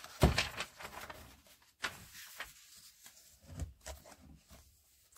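Magazine pages being turned and handled: a run of paper rustles and flaps, loudest about a quarter second in, then softer rustles that thin out towards the end.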